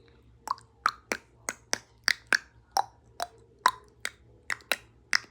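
Footsteps heard as a run of sharp clicks, about three a second, each with a short hollow ring that changes pitch from step to step.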